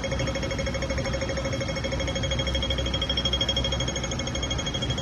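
Audible pedestrian crossing signal beeping rapidly at a steady pitch, the fast pattern that goes with the green walk light, over a low rumble.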